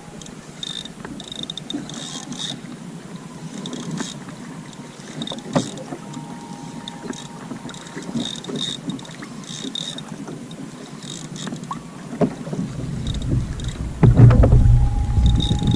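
Wind rumbling on the microphone over the open water around a fishing kayak, with scattered light clicks and taps. The wind drops away early, picks up again about three seconds before the end and turns loud near the end.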